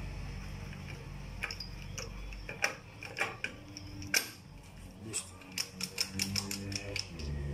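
Sharp metallic clicks and clinks of steel transmission gears and shafts being set into the aluminium crankcase of an AKT NKD motorcycle engine. The taps are scattered at first and come faster near the end.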